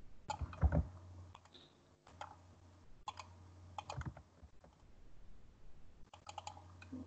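Faint computer keyboard typing and mouse clicks: scattered keystrokes in short runs, over a low steady hum.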